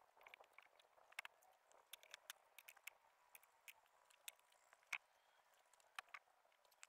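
Near silence broken by faint, irregular clicks and taps, with one sharper tap about five seconds in.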